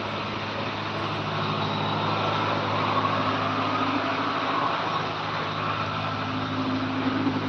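A motor vehicle engine running steadily amid the general noise of road traffic.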